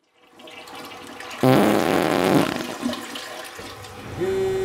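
A loud, wavering fart lasting about a second, starting about a second and a half in. A steady held tone begins near the end.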